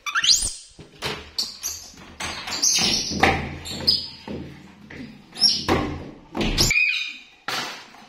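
Pet monkeys giving several short high-pitched squeals, one rising sharply in pitch just after the start, among repeated thumps and knocks.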